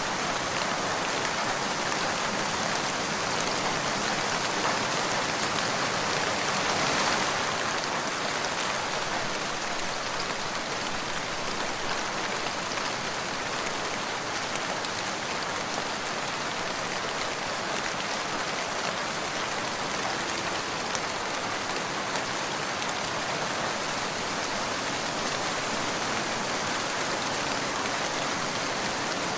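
Steady rain falling, with many fine drops pattering on a surface; it swells slightly about seven seconds in.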